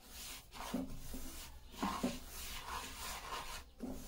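Silicone spatula stirring dry semolina in a nonstick pan: repeated gritty scraping and rustling strokes, about two a second, as the rava is roasted on low flame.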